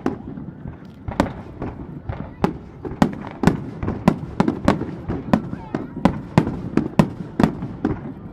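Aerial fireworks shells bursting in quick succession, about two sharp bangs a second, each trailing off in a low rumbling echo.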